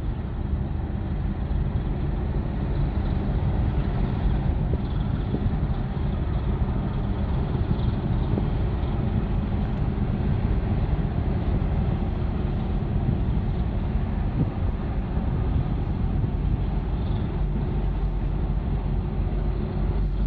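Steady low rumble of a large container ship's main diesel engine passing close by, with water churning along its hull.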